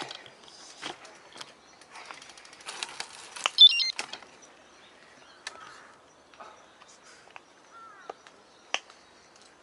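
Bicycle on the move: scattered clicks and rattles, with a noisy stretch around the middle. A short, high, wavering squeak stands out a little after three seconds in.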